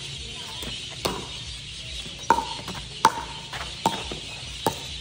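Pickleball rally: sharp hollow pocks of hard paddles striking the plastic ball and the ball bouncing on a concrete court, five hits about a second apart.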